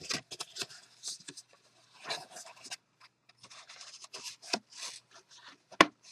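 Scored cardstock being folded by hand along its score lines: paper rubbing and crinkling in irregular short crackles, with a sharp tap a little before the end.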